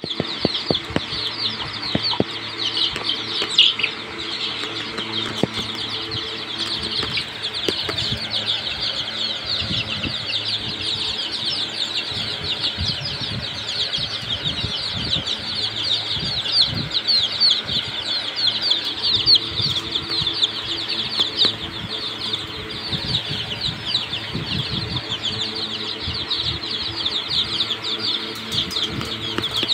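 A flock of Sonali chicks cheeping without pause, many high, short peeps overlapping into a constant chatter.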